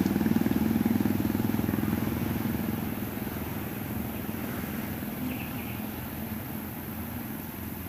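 Diesel engine of a Khlong Saen Saep passenger boat running as the boat pulls away, its pulsing drone fading over the first few seconds. A steady wash of noise stays behind it.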